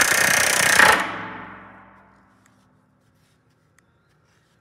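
Pneumatic rivet gun (air hammer) rapidly hammering a 1/4 in rivet against a bucking bar. It stops about a second in, and the noise dies away over the next second or so, leaving near silence.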